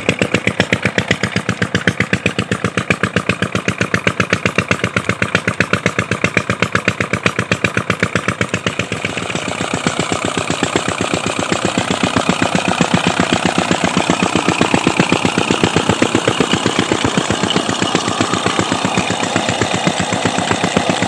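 Single-cylinder Petter-type diesel engine running steadily, belt-driving a tubewell's centrifugal water pump, with a fast, even beat of firing strokes. It runs without strain under the pumping load.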